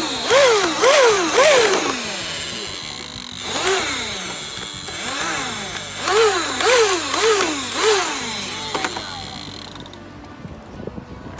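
Little Tikes toy lawn mower's electronic engine sound effect: a revving that rises and falls in quick runs of three or four, over a steady rushing noise, stopping about ten seconds in.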